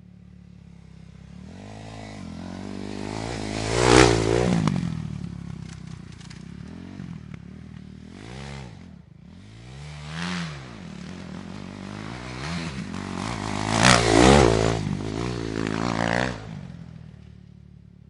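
Dirt bike engines revving up and down as they ride past, with two loud swells, the first about four seconds in and the second near fourteen seconds, and shorter revs in between.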